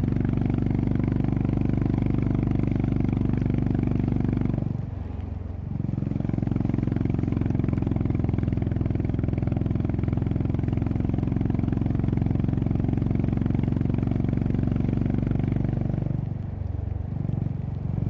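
Honda CB350RS's air-cooled single-cylinder engine running steadily under way, its raw exhaust note carrying through. Twice, about five seconds in and again near the end, the revs drop briefly and then climb back up.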